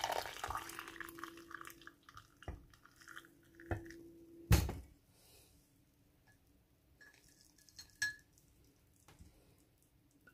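Spiced milk tea poured from a pot through a mesh tea strainer into a glass mug, splashing for about two seconds. Then a few sharp knocks of the pot and strainer against the glass, the loudest about four and a half seconds in, and a smaller one near the end.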